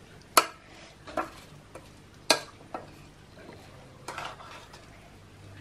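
Steel spoon stirring chopped banana stem and grated coconut in a stainless steel pressure-cooker pot. It knocks and scrapes against the metal sides a handful of times; the sharpest knock comes a little past two seconds in, and a few quick ones come near the four-second mark.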